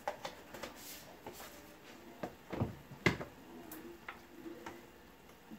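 Scattered light clicks and knocks of containers and utensils handled at a kitchen counter, with the sharpest knock about three seconds in.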